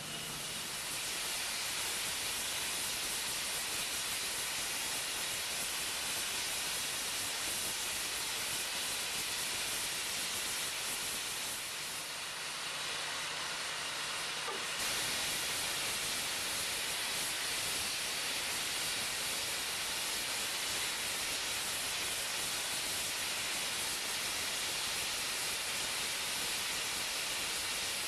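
Steam blowing off from the top of JA 1250 Dianna's locomotive boiler under full pressure, the safety valves lifting: a steady hiss, a little softer about twelve seconds in and stepping up slightly from about fifteen seconds.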